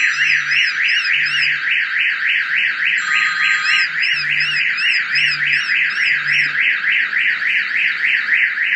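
Aftermarket GSM car alarm siren sounding in alarm mode, set off by a door opened while the car is armed: a loud warbling tone sweeping up and down about four times a second, cutting off suddenly near the end.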